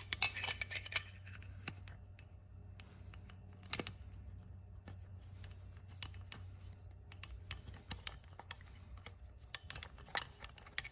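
Screwdriver working a worm-drive hose clamp on a motorcycle engine: a cluster of small metallic clicks and scrapes in the first second, then scattered light clicks, over a faint steady low hum.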